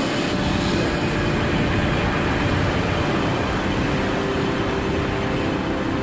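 Steady rushing wind noise of a skydiver in high-speed freefall from the stratosphere, the air rushing past the pressure suit and chest camera, with a few faint steady tones underneath.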